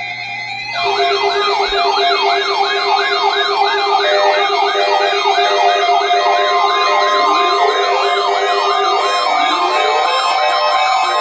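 Several electronic siren sounds layered together, coming in suddenly about a second in. A fast yelp sweeps up and down about three times a second over a higher warbling tone and a pulsing low tone, and slower rising wails join in from about seven seconds.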